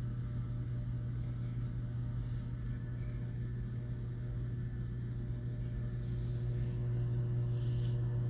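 Steady low hum with faint background room noise, unchanging throughout.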